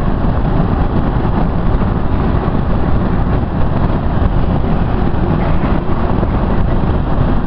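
Steady road noise inside a moving car's cabin: tyre and wind noise, strongest at the low end.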